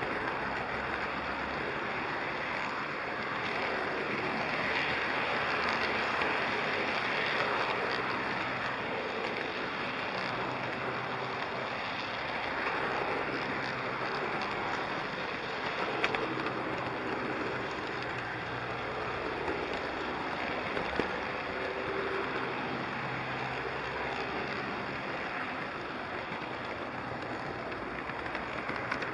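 HO scale model train running along its track, a steady rolling rumble and hiss heard close up from on board the train, with an occasional click.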